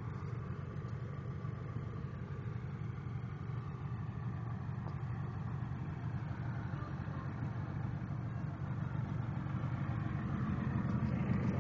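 Land Rover Discovery 1's 300Tdi four-cylinder turbodiesel running steadily as it crawls over deep ruts, getting a little louder near the end.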